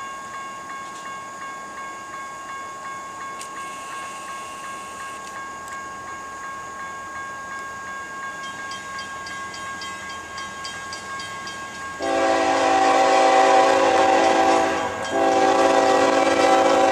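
CSX freight locomotive's multi-note air horn sounding as the train approaches: a long blast starts suddenly about twelve seconds in, breaks off briefly near fifteen seconds, and a second blast follows. Before the horn there is only a faint steady high tone.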